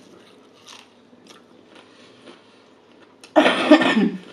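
Faint chewing of fried chicken, then about three seconds in a loud cough into a raised hand, lasting under a second.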